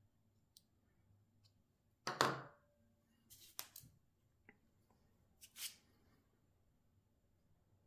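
A 3D-printed plastic part being handled and set down on a hard table: a few separate knocks and scrapes, the loudest about two seconds in.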